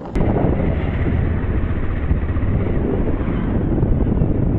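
Wind buffeting the microphone on a moving motorcycle, with engine and road noise underneath. It cuts in suddenly at the very start and stays loud and steady.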